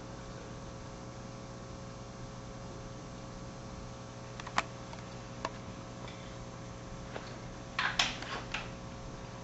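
Steady low room hum with a few light clicks, then a quick cluster of clicks and knocks about eight seconds in: glassware and a plastic bottle being set down on a lab bench.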